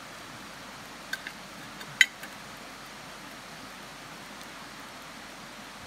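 Steady background hiss with a couple of light clicks about a second in and one sharp metallic clink about two seconds in, as a lid lifter hooks and raises the camp oven's coal-covered lid.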